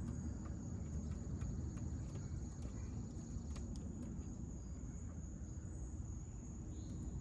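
A steady, high-pitched cricket-like insect trill over a low background rumble, with scattered light clicks and taps from hand work on a battery terminal.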